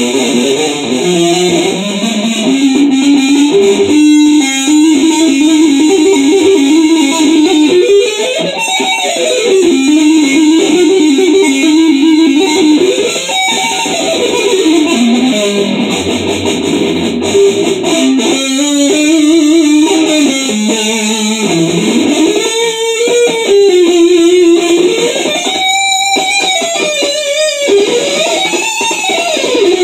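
Les Paul electric guitar playing a fast progressive-metal (djent) lead line, two-handed tapping near the start and picked notes later, the melody swooping up and down in pitch in several places.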